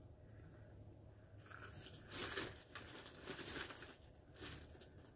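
Faint crinkling and rustling of packaging being handled, in a few short bursts, the loudest a little past two seconds in.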